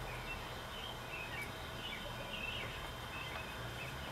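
Small birds chirping repeatedly in the background, short high chirps two or three a second, over a faint low hum that fades out early and returns near the end.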